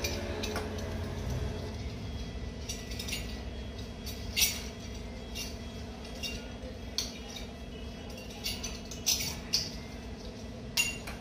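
Chrome kitchen tap and its metal fittings being handled and assembled: scattered sharp metal clinks and clicks, the loudest about four seconds in and several more close together near the end.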